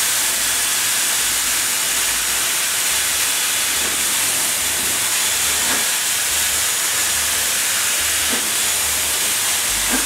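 Dyson Supersonic hair dryer and Dyson Airwrap blowing together on wet hair: a steady, loud rush of air with an uneven low rumble underneath.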